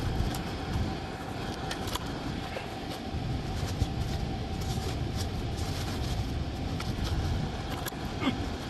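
Hands working inside a metal air handler cabinet: scattered small clicks and taps over a low rumble of handling noise, with a steady hum underneath.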